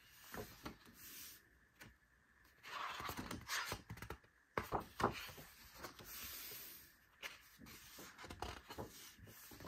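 Large pages of a thick paper photobook being turned by hand, rustling and flapping twice, with small handling clicks between the turns.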